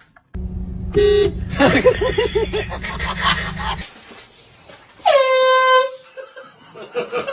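Handheld air horn blasting twice: a short blast about a second in and a longer one about five seconds in. Between them comes a stretch of rumbling noise with a wavering cry.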